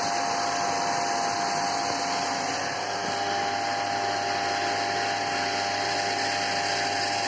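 Electric centrifugal water pump running steadily: a constant motor hum and whine over a rushing hiss, running smoothly on its shaft, which has been rebuilt with epoxy under the mechanical seal. The sound cuts off at the very end.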